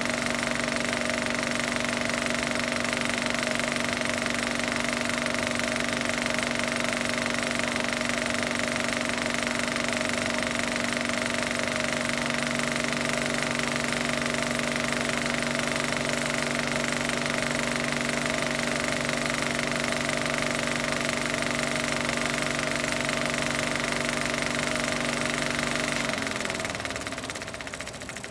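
A motor running steadily with an even hum, then winding down and stopping near the end.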